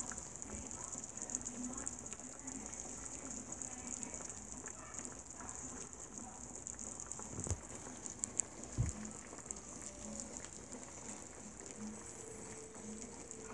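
Pot of meat in broth boiling on a stovetop: a faint, steady bubbling patter. Two dull knocks come a little past the middle.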